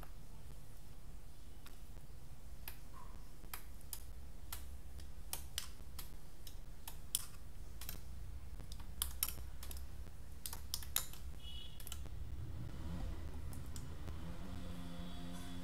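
Irregular light clicks, scattered over about ten seconds, over a steady low hum. Near the end a low droning tone with several overtones comes in.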